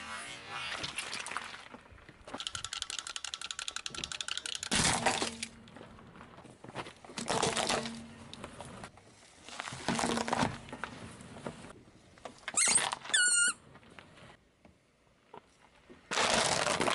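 A car tyre rolling over and crushing small objects, red jelly and a small toy car among them: a run of short crunching and cracking noises every two or three seconds, a fast clicking rattle a few seconds in, and a brief high squeak about three-quarters of the way through.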